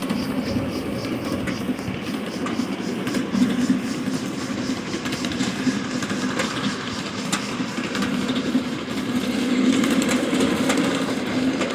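Miniature live steam train running along the track, with a steady rumble and wheels clicking over the rail joints.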